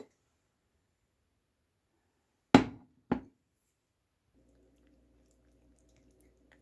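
Two sharp knocks about half a second apart, like hard objects being set down or bumped, followed by a faint steady hum that starts partway through.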